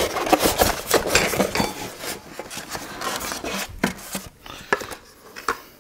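Airsoft submachine gun replica being lifted out of its foam packaging insert: rubbing and scraping against the foam with irregular small clicks and knocks of its polymer body, busiest at first and dying down near the end.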